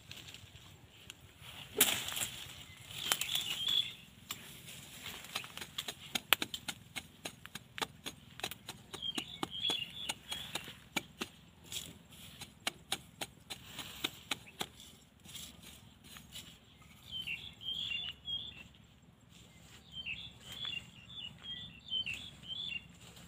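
A machete blade scraping and knocking against hard, dry dirt in quick, irregular strokes, with sharp knocks about two and six seconds in. Small birds chirp in short runs now and then.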